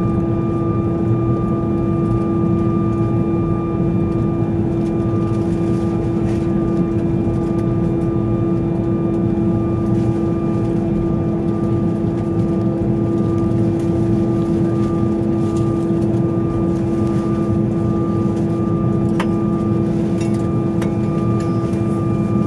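Steady cabin drone of an Airbus A320 taxiing at idle power, heard from inside the cabin: a constant hum with a few steady tones over a wide rush of noise. A few faint clicks come near the end.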